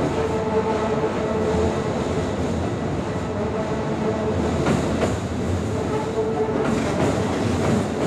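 Keikyu 1000 series stainless-steel commuter train running across a steel truss railway bridge. A steady rumble and hum of wheels and motors runs throughout, with a few sharp rail-joint clacks about five seconds in.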